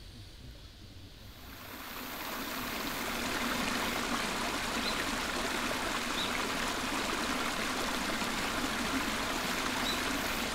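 Flowing stream water fading in over the first couple of seconds, then a steady rushing, with a few faint high bird chirps.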